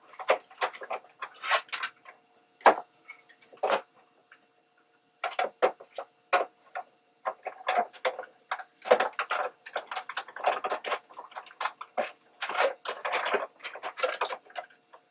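Die-cutting embossing machine running a stack of plates and an embossing folder through its rollers: a run of irregular clicks and clacks, with short pauses.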